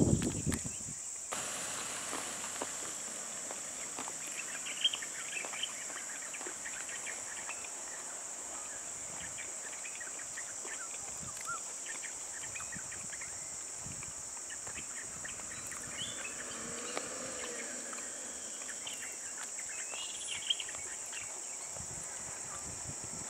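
Steady high-pitched drone of insects, with scattered short chirps over it and a couple of sharp clicks.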